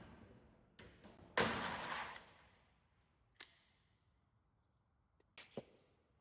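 Pop riveting into a flat steel cladding sheet: a loud noisy burst about a second and a half in that fades over nearly a second, then single sharp clicks, one mid-way and a couple near the end.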